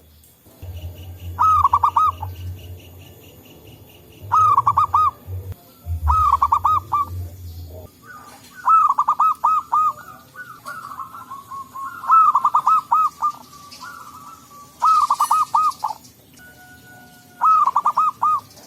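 Zebra doves cooing: about seven short phrases of quick, rolling notes, repeating every two or three seconds. A low hum sounds under the first few phrases and stops a little before the middle.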